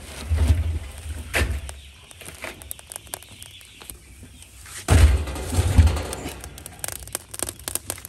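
Firewood logs thudding and knocking as they are pushed into a burning barrel wood stove, in two bouts of heavy thuds, the second starting about five seconds in, with scattered short clicks between.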